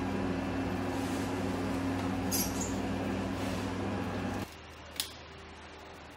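Steady low hum with hiss, with a brief faint squeak about two and a half seconds in. The hum cuts off abruptly about four and a half seconds in, leaving faint background noise, and a single sharp click follows about half a second later.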